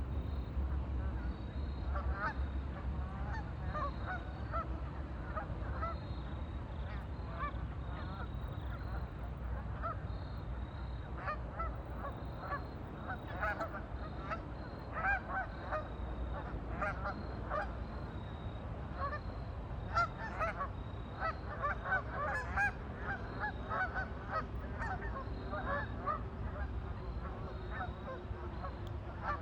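A flock of waterfowl calling continuously, with many short overlapping honking calls that grow busier in the second half, over a steady low rumble.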